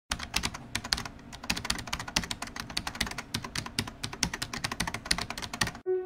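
Rapid, irregular clicking of typing on a computer keyboard, stopping abruptly near the end as soft music with sustained notes begins.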